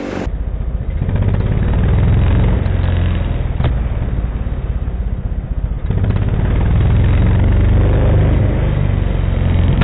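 Chinese 150cc single-cylinder dirt bike engine revved hard and held in two long pulls of the throttle, with a brief drop in revs between them, to make the exhaust backfire. One sharp pop cracks through the engine noise about three and a half seconds in.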